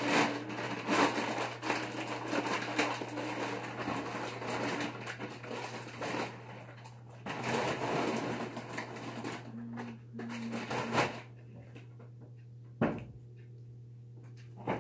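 Close, crackly rustling and crunching from handling the cereal and its packaging at the counter, in two long stretches that stop about eleven seconds in. A single click follows near the end.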